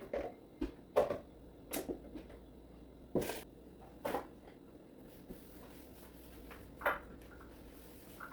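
A handful of separate knocks and clatters at uneven intervals: kitchen things such as pots, lids and utensils being set down and handled.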